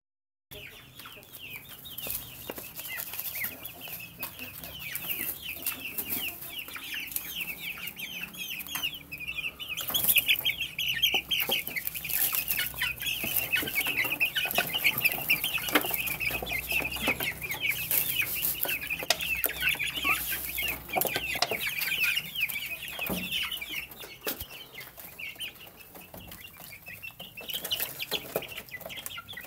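Young chicks peeping continuously, many short high calls overlapping one another. The peeping grows louder about a third of the way in, as the chicks crowd to the feed.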